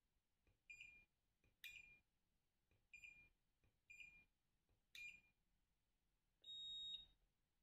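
FNIRSI DMT-99 digital multimeter beeping as its buttons are pressed: five short beeps about a second apart, some with a faint click of the button, then one longer, higher-pitched beep near the end.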